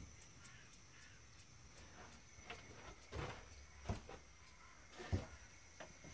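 Quiet room tone with a few soft, low thumps in the second half.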